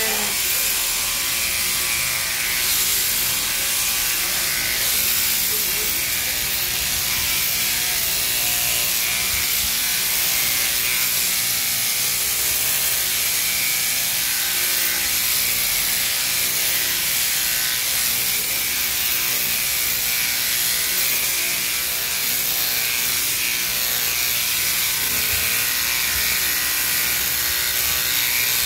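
Sheep-shearing machine running steadily, its handpiece, driven through a jointed drive arm, clipping through the fleece with a continuous mechanical chatter.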